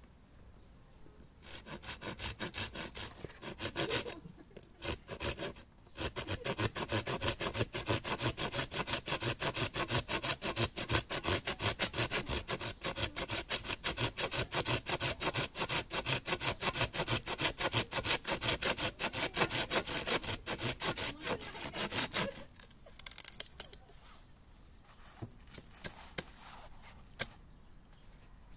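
Hand saw cutting wood with rapid, even back-and-forth strokes. It pauses briefly after a few seconds, runs steadily for about sixteen seconds more, then stops, followed by a few scattered knocks.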